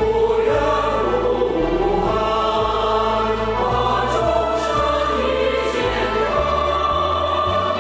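Choir singing a song with instrumental accompaniment.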